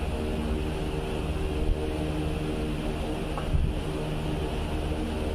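Steady hum of a running machine, even in pitch throughout, with two brief light knocks near the middle.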